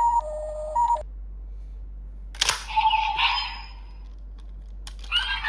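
Toy transformation device's electronic sound effects. A looping two-tone standby beep cuts off about a second in. Later a sharp plastic click sets off a short burst of electronic sound, and another click and sound follow near the end.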